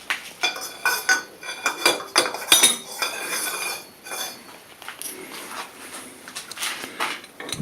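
Steel parts clinking and knocking with short metallic rings as a chuck stop is worked loose and pulled out of a lathe chuck. The knocks come thick in the first three seconds, then more sparsely, with another one near the end.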